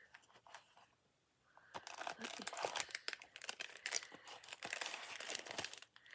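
Packaging crinkling and tearing as an item is unwrapped by hand, starting about two seconds in after a brief hush, a dense run of crackles and rips.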